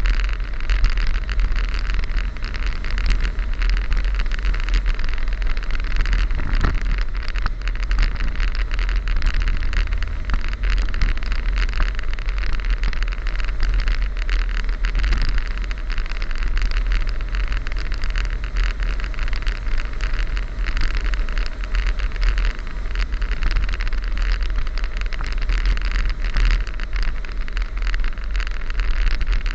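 A car driving steadily along a paved road: continuous engine hum and tyre noise over a low rumble, with the engine note shifting slightly now and then.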